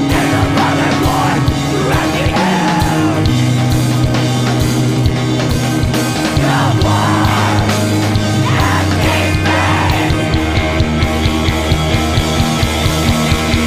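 Loud, heavy screamo-style band music: distorted guitars and bass hold long chords that change every second or two over dense drumming, with occasional screamed vocals.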